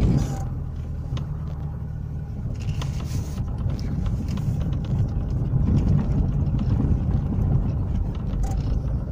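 Car engine running and tyre noise heard from inside the cabin while driving slowly over a rough dirt track, with a few short knocks and rattles.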